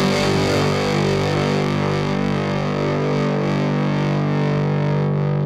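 Rock backing music: a distorted electric guitar holding a sustained chord.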